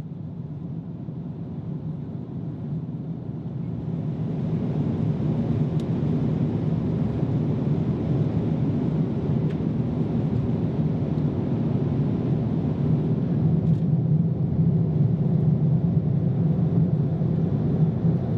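Steady low rumble of cabin noise inside a Boeing 787-10 at cruise, the engines and airflow heard through the fuselage, growing louder over the first few seconds.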